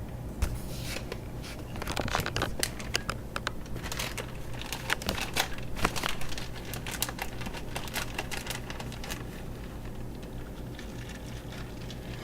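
Plastic bag of shredded Colby Jack cheese crinkling and rustling in bursts as the cheese is handled and added, the crackling thinning out near the end, over a steady low hum.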